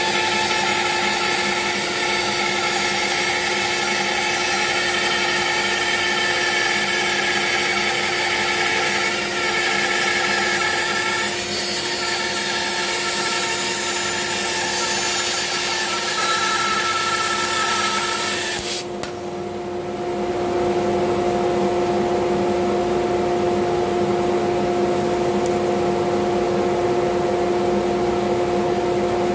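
Bandsaw cutting through a thick glued-up block of wood, the blade hissing steadily through the cut. About two-thirds of the way in the cut ends, the hiss drops away, and a steady machine hum runs on.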